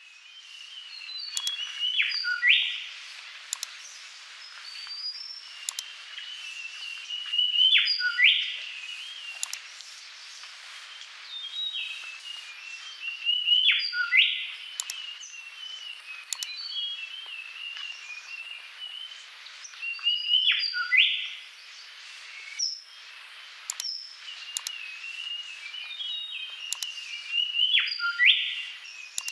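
Birdsong: warbling chirps with a sharp rising sweep. The same phrase comes back about every six seconds, as if looped.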